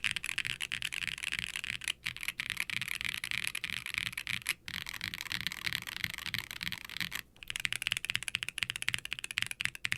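Fast, continuous typing on a mechanical keyboard with light linear switches (Kailh Lunar Linears) in a silicone-cased HIBI June with an FR4 plate and ABS keycaps, giving a deep, poppy clacking. The keystrokes come in a dense stream with brief pauses about two seconds in, past the middle and about seven seconds in.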